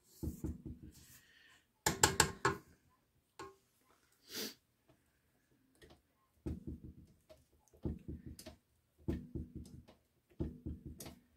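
Silicone spatula scraping creamed cookie dough down the sides of a KitchenAid stand mixer's stainless steel bowl and off the flat beater, in short bursts of rapid soft knocks and scrapes. The sharpest, loudest burst comes about two seconds in.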